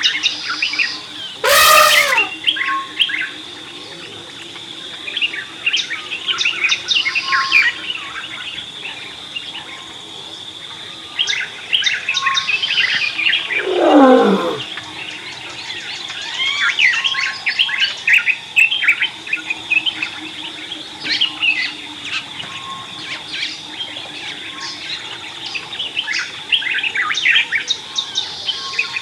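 Savanna ambience: many birds chirping and calling over a steady high insect drone. A loud, harsh call sounds about two seconds in, and a call that slides steeply down in pitch comes about halfway through.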